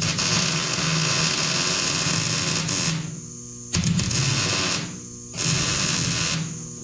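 MIG welder arc crackling while filling a plug weld, in three bursts: a long run of about three seconds, then two shorter ones. A steady electrical hum sounds in the pauses between them.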